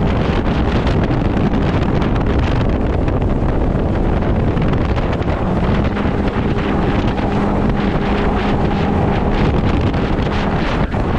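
Heavy wind buffeting the microphone over a jet-drive boat running underway, with its engine coming through as a steady hum from about six seconds in.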